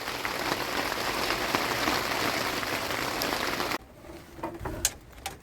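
A steady rushing noise, like rain or wind, that cuts off suddenly near four seconds in, followed by a few light knocks.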